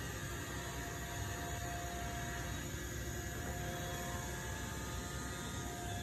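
Robot vacuum running across carpet: a steady whirring hum of its motor and brushes, with a faint whine.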